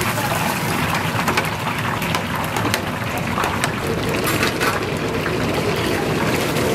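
Battered pieces deep-frying in hot oil: a steady sizzle with scattered crackles and pops.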